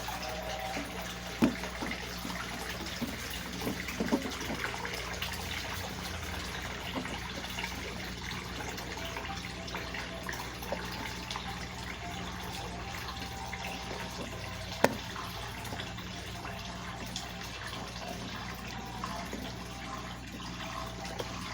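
Consul CWS 12 washing machine with water running steadily into its tub as it fills, over a low steady hum. A few sharp knocks sound: one early, a couple about four seconds in, and one loud one past the middle.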